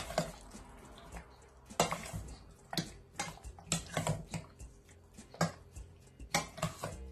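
Metal spoon stirring chicken pieces through a thick yogurt marinade in a stainless steel bowl, scraping and clinking against the bowl in irregular strokes.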